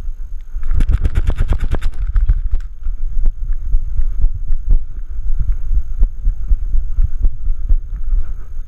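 A Bernese mountain dog paddling through lake water, heard through a GoPro's waterproof housing on her back: water sloshing against the housing with irregular muffled low thumps, and a quick run of splashes about a second in.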